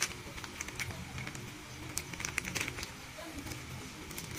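Small clear plastic parts bags crinkling and rustling as they are picked up and handled, in a run of scattered short crackles and clicks.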